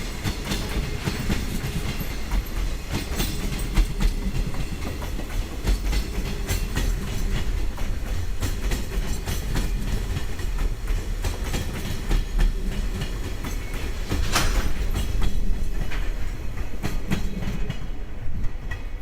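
Freight train rolling past, a steady low rumble with wheels clicking over the rail joints, and one sharper knock about fourteen seconds in.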